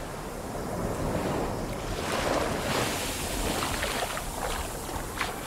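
Surf washing up over a pebble beach, the rush of water swelling about two seconds in, with a few short splashes or clicks in the wash.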